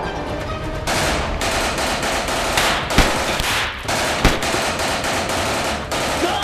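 Rapid handgun gunfire, shot after shot in quick succession, with two louder shots about three seconds and four seconds in.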